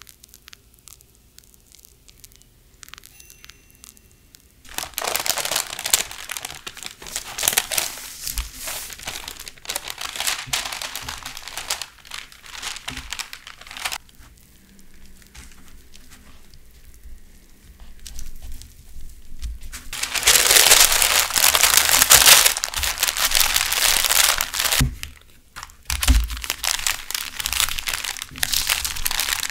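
Parchment paper crinkling and rustling as a cream-filled sponge cake is rolled up and wrapped in it. The rustling comes in loud stretches from about five seconds in and again from about twenty seconds, louder in the later stretch. The first few seconds are faint, with soft scraping of a spatula spreading whipped cream.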